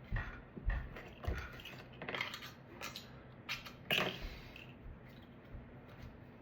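Scattered knocks, clicks and rustles of things being handled: a few dull thumps, then sharper clicks about two and four seconds in.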